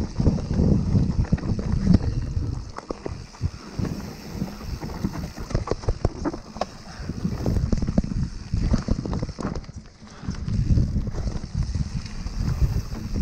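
Yeti SB150 mountain bike running fast down a rough dirt trail: wind rumble on the microphone, heaviest in the first couple of seconds and again in the last few, with quick rattles and knocks from the bike over the ground in between.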